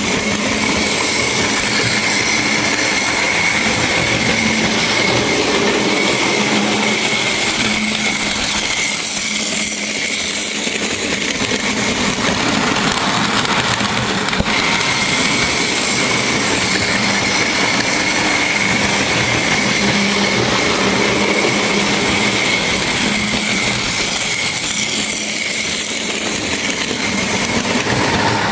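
Märklin model trains running on the layout: the steady whir of their electric motors and wheels rolling on the track, with a steady high whine through it.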